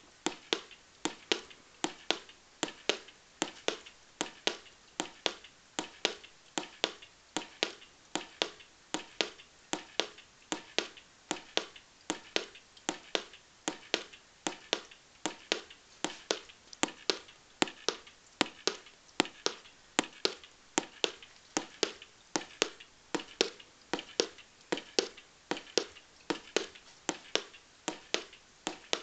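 Velleman MK170 electronic star kit sounding a steady electronic ticking, a little over two sharp clicks a second, starting suddenly.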